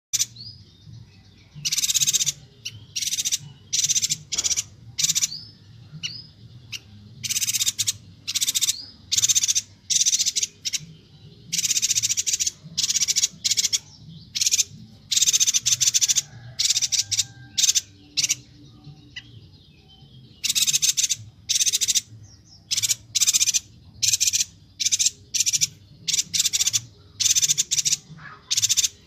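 Bornean yuhina (perenjak batu) calling: short, harsh chattering bursts repeated in quick runs, about one or two a second, with brief pauses between runs, over a faint low hum.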